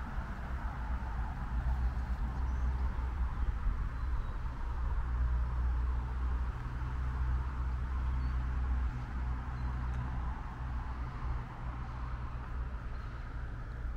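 Outdoor ambience: wind rumbling on the microphone over a steady distant hum of traffic, with a few faint bird chirps.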